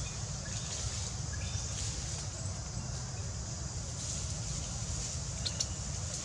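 Outdoor forest ambience: a steady low rumble under an even high hiss, with a few faint chirps and a couple of brief clicks about five and a half seconds in.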